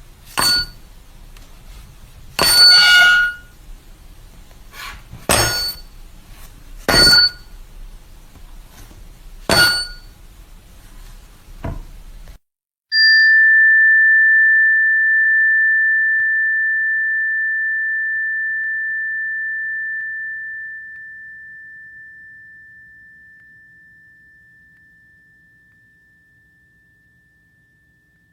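Ding sound effects: a run of about six short, bright metallic dings a couple of seconds apart over faint hiss, then after a short gap a single clear ding, like a struck tuning fork, that rings on one pure tone and fades away slowly over about fifteen seconds.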